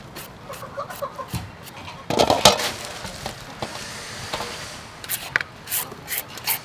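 Julienne peeler scraping shreds off a cucumber and a carrot into a metal bowl in quick, short strokes, with one louder clatter about two seconds in.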